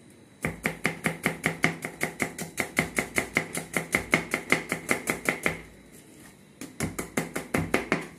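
Kitchen knife slicing an onion on a cutting board: quick, even chops about five a second, stopping for about a second some six seconds in, then starting again.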